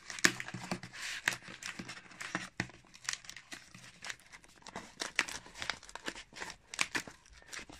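Cardboard shipping box being pulled open by hand: its flaps and slit packing tape crinkle and tear in irregular crackles, with one sharp snap just after the start.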